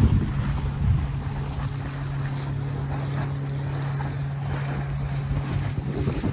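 Steady engine hum from the vessel pushing the barge, with wind buffeting the microphone and water splashing against the barge's edge.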